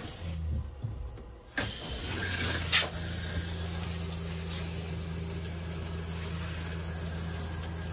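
RV water pump humming steadily as it pushes pink antifreeze through the plumbing, while the shower head sprays into the shower pan. The spray falls away briefly near the start and comes back about a second and a half in, with one sharp click shortly after.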